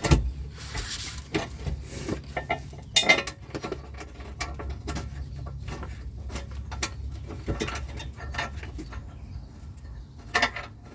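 Irregular metallic clinks and taps of trailer-hitch hardware, steel nuts and bolts and the hitch bar being handled and fitted.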